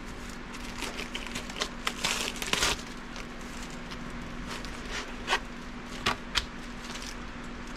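Plastic packaging bag crinkling as Kydex sheets are pulled out of it, densest in the first three seconds, followed by a few light taps as a sheet is set down on a granite countertop. A steady low hum sits underneath.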